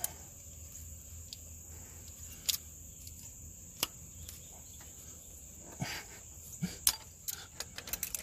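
Sharp metal clicks and taps from hands working a loosened exhaust-manifold stud and locking pliers at the manifold flange: a couple of single clicks, then a quick cluster near the end. A steady high-pitched cricket trill runs underneath throughout.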